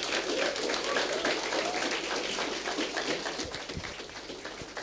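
Audience applauding, a dense patter of clapping that gradually fades.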